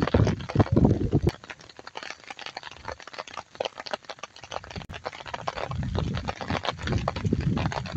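Rain pattering, with footsteps thudding and splashing on a wet brick path.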